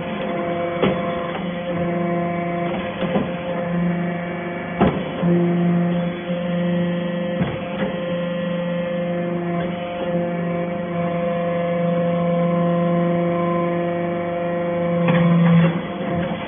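Hydraulic baler pressing stainless steel chips: a steady machine hum with a few knocks. The hum grows stronger about five seconds in and drops back near the end.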